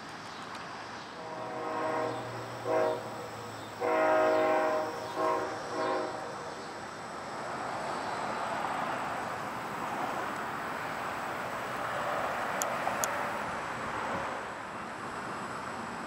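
Train horn sounding a series of blasts, long and short, followed by a steady rumble that swells and then eases as the train runs by.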